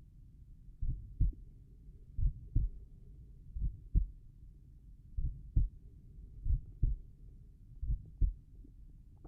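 A resting human heart beating slowly, about six beats here: each beat a lub-dub pair of dull, low thumps about a third of a second apart, one pair roughly every 1.4 seconds (a little over 40 beats a minute).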